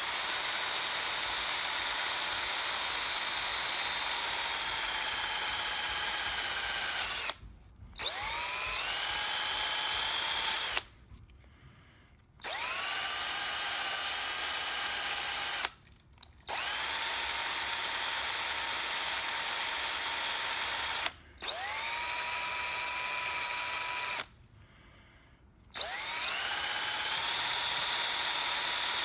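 Power wire brush scrubbing the edges of mortise lock parts, switched on and off in about six runs of a few seconds each. At each start the motor whine rises in pitch, then holds steady under the rasp of the wires.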